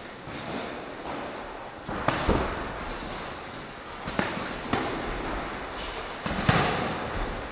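Boxing gloves landing punches during sparring: a few irregular, sharp thuds spread over several seconds, echoing in a large hall.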